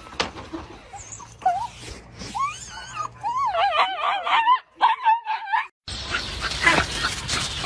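A dog whining and howling in a long, wavering, warbling voice. It breaks off about six seconds in, followed by rustling and clicking noises.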